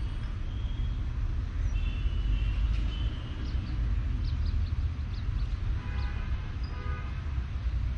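Outdoor ambience: a steady low rumble with scattered short bird chirps, and a distant train horn sounding briefly about six seconds in.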